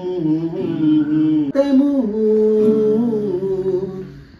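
A voice singing long, drawn-out, sliding notes of an Assamese song, dying away near the end.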